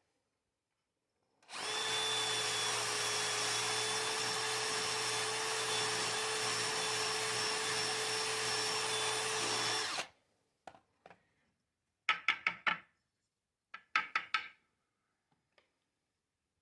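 Electric power tool running steadily with a constant whine for about eight seconds, then cutting off abruptly. A few short clattering knocks follow.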